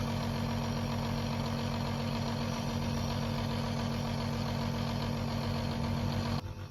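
Home compressor nebulizer running with a steady electric hum while it turns liquid medicine into mist; the hum drops away suddenly near the end.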